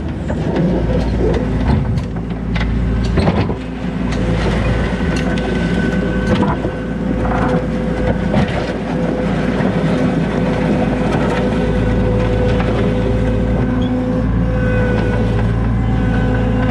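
Skid steer loader's engine running steadily under load with a high hydraulic whine, and scattered knocks and clanks as the machine works, most of them in the first half.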